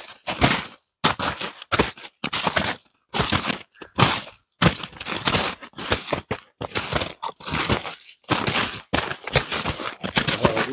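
Footsteps crunching in snow close by, about two steps a second, at an uneven walking pace.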